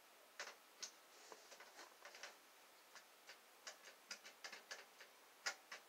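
Faint, irregular light clicks and taps, a couple of dozen scattered over a few seconds with no steady sound beneath: small objects being handled.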